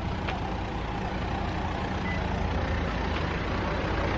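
Camper van's engine running steadily, a continuous low hum with road noise.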